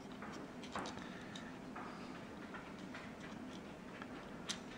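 Faint, scattered small clicks and ticks of plastic gear and axle parts being pressed by hand into a Lego Power Functions train motor's plastic housing, the sharpest click near the end.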